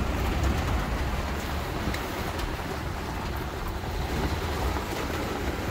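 Heavy rain falling on a campervan, heard from inside: a steady hiss with a low rumble underneath.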